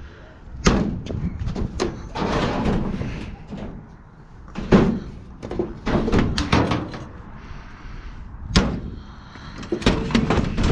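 Scrap metal appliances being handled: several loud bangs and clanks of sheet metal, the loudest near the middle, with a quick run of knocks near the end and scraping between them.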